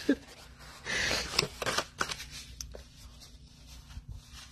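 Kraft cardstock being folded and handled by hand along its score lines: light paper rustling with a few sharp taps and clicks, busiest about a second in, then softer scattered rustles.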